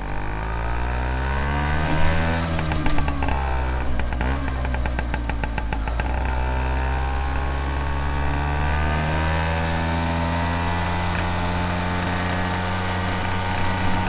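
Vespa scooter engine and exhaust heard close to the exhaust while riding. The engine note climbs, drops about two to three seconds in, and has a quick rattle of clicks from about four to six seconds in. It then rises again and holds at a steady cruise.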